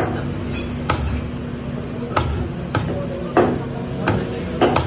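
Butcher's meat cleaver chopping mutton on the bone against a wooden tree-stump block: about seven sharp thwacks at an uneven pace.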